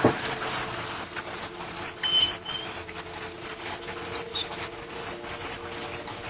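Insects chirping in a dense, fast, high-pitched trill, with a faint steady hum underneath.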